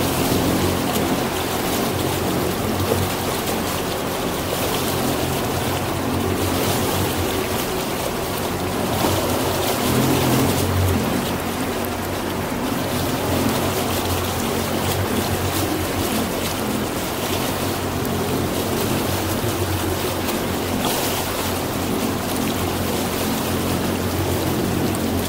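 Motorboat under way: a steady engine hum with water rushing and splashing along the hull.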